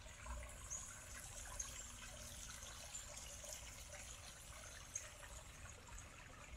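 Faint trickle of a shallow creek running over rocks, with a low rumble underneath.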